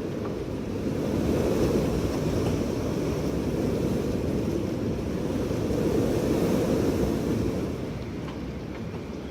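Strong wind blowing in steady gusts, a deep rushing that swells about a second in and again around six seconds, then eases near the end.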